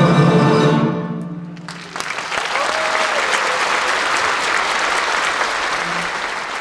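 An orchestra holds its final chord, which stops about a second in and dies away. About two seconds in, the audience breaks into steady applause.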